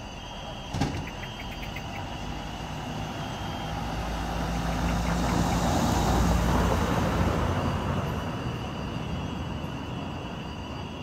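A minivan driving past close by: its engine and tyre noise swells to a peak about halfway through, then fades away. A single sharp click about a second in.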